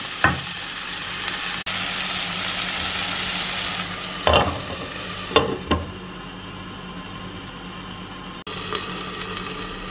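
Chopped onion, chilli and tomato sizzling in a non-stick kadai. A glass lid is set on the pan with a few short clinks about four to six seconds in, and the sizzling is quieter after that.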